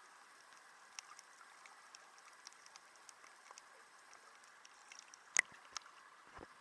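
Faint steady water hiss with scattered small clicks and pops, and two louder sharp clicks about five and a half seconds in.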